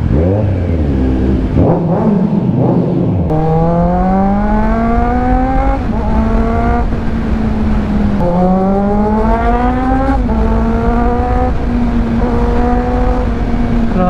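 2022 Kawasaki Z900's 948cc inline-four, fitted with an aftermarket exhaust, pulling hard through the gears. After about three seconds of low, uneven engine note, the pitch climbs steadily, drops back at each upshift, and then settles to a steady cruise.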